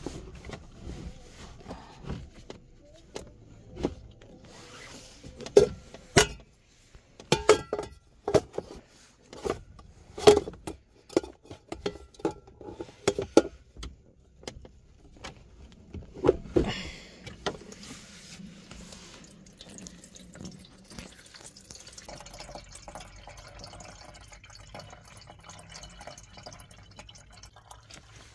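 Knocks and clatter as a metal kettle is handled and set in place, then about halfway through a steady stream of water runs from the tap of a plastic water jug into the stainless steel kettle, filling it.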